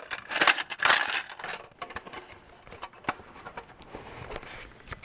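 A coin being taken out of a toy coin bank and handled: clinks and rustling handling noise, loudest in the first second, then a few scattered clicks.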